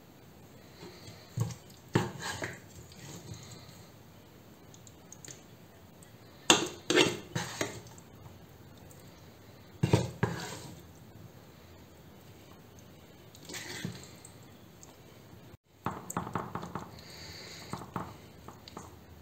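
A metal spoon clinking and scraping against a metal pan in several short bursts a few seconds apart, as macaroni filling is scooped out and spread into a baking mold.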